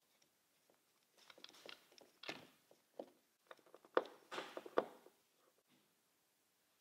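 Faint scattered clicks, taps and brief scraping of hand work with a screwdriver, fitting a trim strip to a metal window frame. The taps come thickest in the middle, with the loudest about four seconds in.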